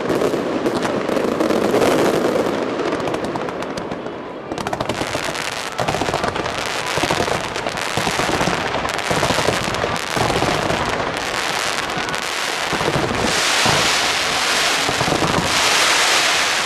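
Fireworks display of ground-fired fountain and comet effects: a dense hissing crackle with rapid sharp pops and bangs throughout, rising to two louder crackling surges near the end.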